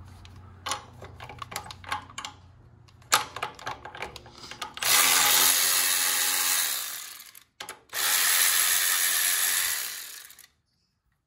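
Scattered clicks and ratcheting as a tool is worked onto a bolt, then a cordless power tool runs twice for about two and a half and three seconds, spinning out the bolts of the exhaust bracket at the gearbox cross member.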